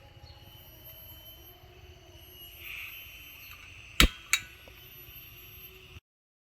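Two sharp knocks about a third of a second apart over steady outdoor ambience: a constant high whine and a low rumble. The sound cuts off abruptly near the end.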